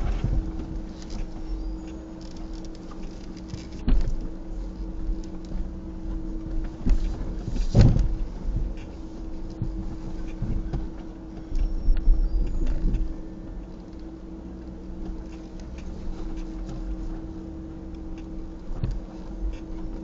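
A vehicle's engine running with a steady hum as it crawls over a rocky trail, with scattered knocks and clunks from tyres and underbody on rock, the loudest about eight and twelve seconds in.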